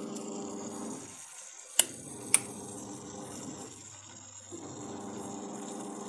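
Aquarium pump buzzing with a steady low hum that drops away twice, with two sharp clicks close together about two seconds in.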